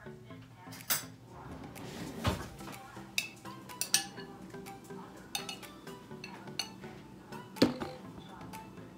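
Dishes and cutlery clinking and knocking in a kitchen, a series of separate sharp clinks with the loudest knock near the end.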